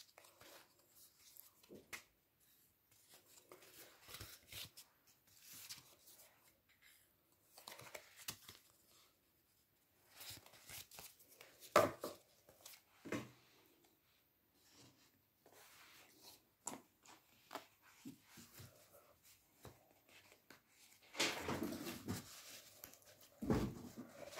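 Paper and cardboard pages and inserts of a handmade scrapbook being handled: scattered rustles, slides and light taps of card on a wooden table, with a sharper knock about halfway and a longer, louder stretch of paper rustling near the end.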